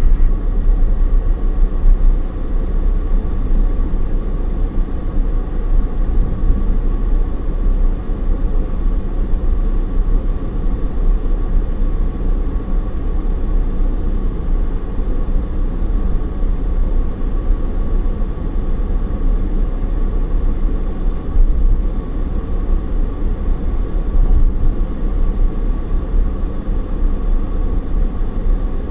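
Car driving, heard from inside the cabin: a steady road and engine rumble.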